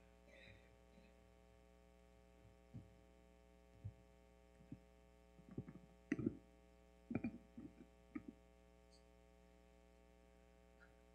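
Near silence with a steady electrical hum through the sound system, broken by scattered soft knocks and bumps from about three to eight seconds in. The loudest cluster, just after six seconds, is a gooseneck microphone on a lectern being handled and adjusted.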